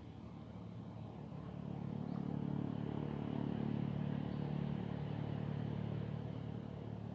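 Engine of a passing motor vehicle: a steady low hum that grows louder over the first few seconds, peaks about halfway, then fades.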